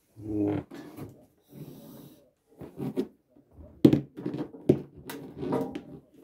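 Heavy Acmera AV receiver being shifted and turned on a floor by hand, its metal case knocking and scraping, with its power cord being picked up. The sharpest knocks fall in the second half.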